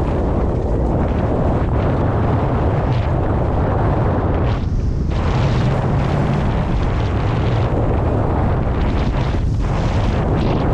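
Strong wind buffeting the microphone of a camera riding on a windfoil under sail: a dense, steady low rumble that grows briefly thinner twice.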